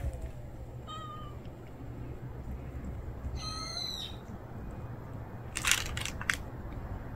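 A cat meowing twice, high-pitched: a short meow about a second in and a longer one a little after three seconds. A few sharp clicks follow near six seconds.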